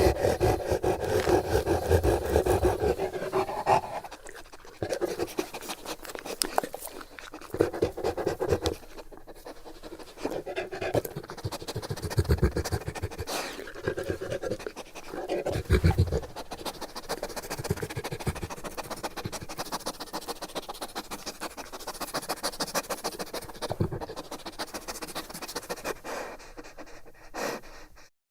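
Bullmastiff panting close up: rapid, rhythmic breaths, heavy and loud for the first few seconds, then lighter with a couple of deeper breaths, cutting off suddenly near the end.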